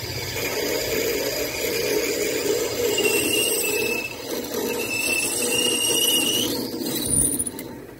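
A wood lathe spins a plastic blank at about 800 to 900 RPM while a 7 mm twist drill in the tailstock chuck is fed into it, boring the hole with a steady cutting noise and a wavering high squeal. The sound eases off near the end as the feed stops.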